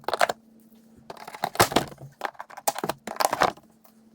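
Plastic push-pin retainer clips being pried out of a truck's plastic fender liner, with irregular sharp plastic clicks and cracks. These clips are brittle and often snap on removal.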